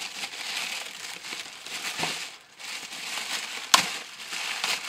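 Plastic poly mailer bag crinkling and rustling as it is pulled open by hand. There are two sharp snaps, the louder one near the end.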